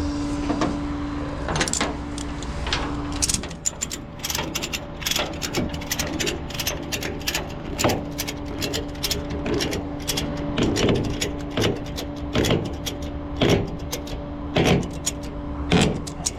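Irregular metallic clicks and clanks, some in quick clusters, over a steady low mechanical hum.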